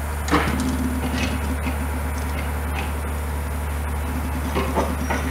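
GWR Rheidol Tank locomotive No. 1213 standing in steam: a steady low rumble, with a sharp knock and a brief low hum about a third of a second in and a few light clicks and knocks near the end.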